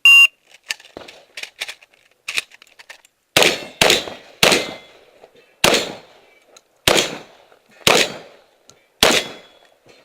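Shot-timer start beep, then after a few seconds of faint knocks a string of about seven loud shotgun shots fired at a half-second to one-and-a-half-second pace on an IPSC shotgun stage.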